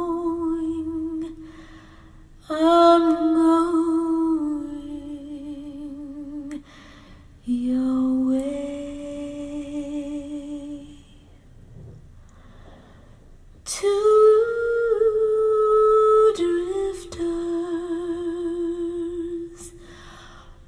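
A woman's voice singing a slow ballad, holding long notes with vibrato in unhurried phrases separated by short pauses.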